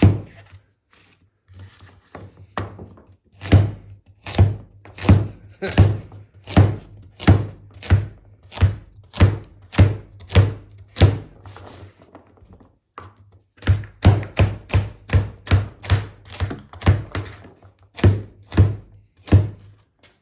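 A heavy forged 5160 steel chopper blade chopping vegetables on a cutting board: a steady series of sharp knocks of blade through vegetable onto board, about one every three quarters of a second, then after a short pause a faster run of about two chops a second.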